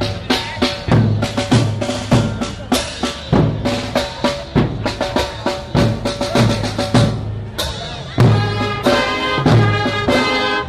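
Marching band playing as it parades: snare drums and a bass drum keep a steady march beat, with brass (sousaphone and trumpets) over it. About three-quarters of the way through, the brass comes in louder with held chords.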